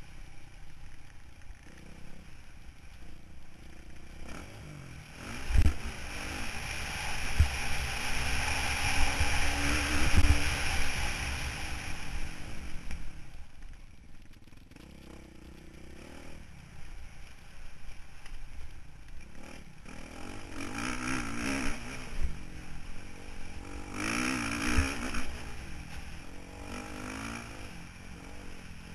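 Motocross bike engine heard from the rider's helmet camera, revving up and down in several surges as the rider accelerates and backs off around the dirt track, over a constant rush of noise. Sharp knocks, the loudest about five and a half seconds in, come as the bike hits bumps.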